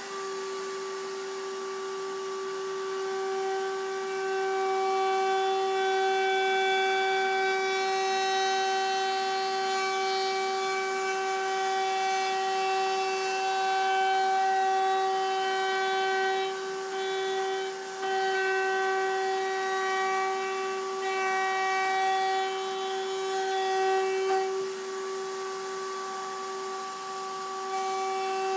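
Router in a router table running with a steady high whine, cutting a round-over on the edges of a cherry guitar body. Its level rises and falls a little as the wood is fed past the bit.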